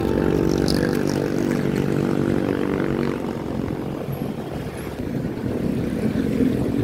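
Motorcycle engine running while riding, its pitch falling over the first few seconds as it eases off, then mostly road and wind noise before the engine note picks up again near the end.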